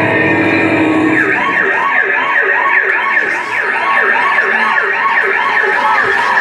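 Siren sound effect in a dance performance's backing track: a long falling glide in pitch ending about a second in, then a fast rising-and-falling wail repeating about two to three times a second.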